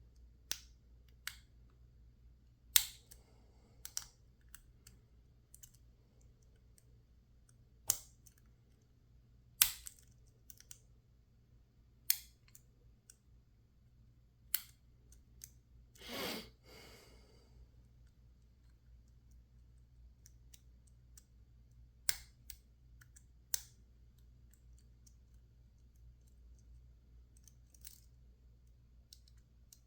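Lock picks working a PacLock 410 Pro padlock: a dozen or so sharp, irregularly spaced clicks, with one brief scraping rasp about halfway through. A faint low hum runs underneath.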